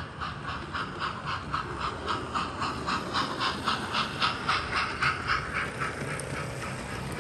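Steam locomotive chuffing in an even rhythm of about four beats a second, fading out after about five seconds into a steadier running noise.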